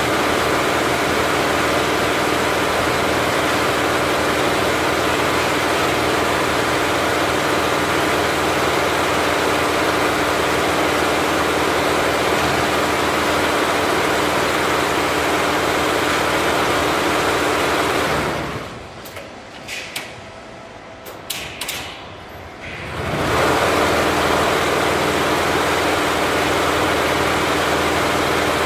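Richpeace 20-head flat embroidery machine stitching at 1200 RPM, a loud, steady, dense mechanical din with a steady hum in it. Toward the end it goes much quieter for about five seconds, with a few light clicks, then the same running noise starts again.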